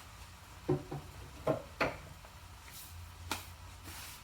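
A few sharp knocks of a cooking utensil against a pan or container, with short scraping sounds, as leftover rice is added to the pan.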